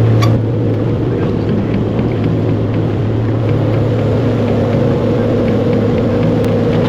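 Engine of a heavy machine running steadily at a constant speed, a low, even hum.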